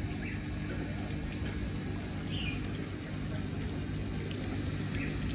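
Steady low mechanical hum with a few faint, short bird chirps over it.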